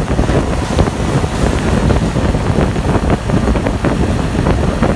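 Steady low rumble of vehicles on the move, with wind buffeting the microphone.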